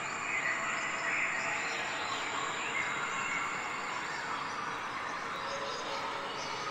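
Steady outdoor background noise with faint bird chirps through it.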